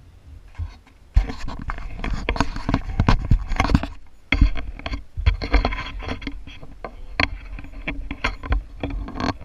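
Rumbling and knocking picked up by a handlebar-mounted camera on a moving bicycle, with many sharp rattles and clicks. It starts suddenly about a second in and drops away briefly just after four seconds before carrying on.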